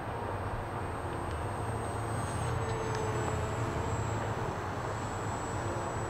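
Radio-controlled Arcus M sailplane's electric motor in flight, heard as a thin, steady high whine that dips slightly in pitch about two and a half seconds in, over a steady low background noise.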